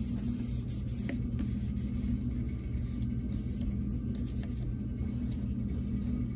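A steady low mechanical hum, like a motor or fan running, holding the same pitch throughout, with a few faint ticks.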